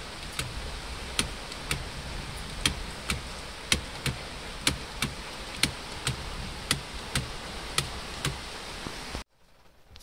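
A car's indicator flasher ticking steadily, about two ticks a second, over a low hum. The ticking stops abruptly near the end.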